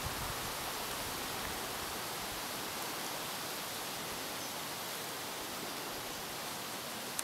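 Steady, even hiss with no distinct sounds: microphone noise and faint outdoor background. The distant chamois walking on the snow is not heard.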